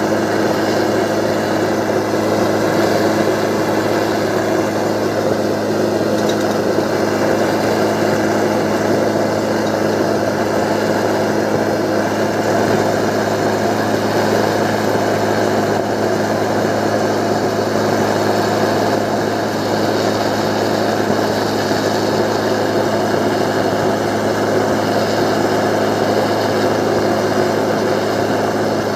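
An engine-driven machine running steadily at an even speed, with a constant hum and no change in pace.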